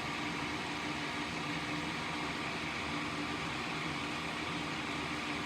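Small electric fume-extractor fan running steadily, a constant whir with a low hum.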